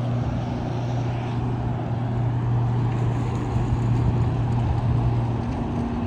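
Motorboat engine running as the boat goes by, a steady low drone that drops away near the end.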